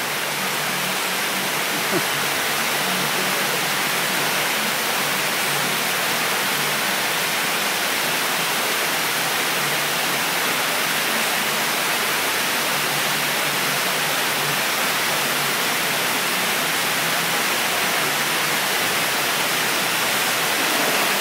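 Steady rush of water from a surf-simulator wave ride: a fast sheet of pumped water pouring up over the padded ramp, at an even level throughout.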